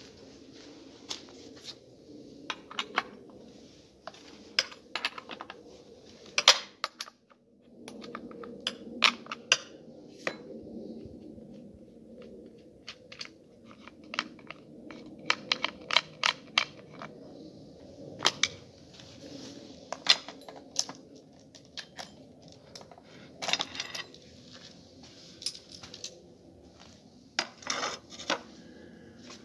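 Scattered sharp clicks, knocks and clatters of metal and plastic as a chainsaw is stripped by hand, its sprocket cover, guide bar and chain being taken off. The clicks come at irregular intervals over a low steady background noise.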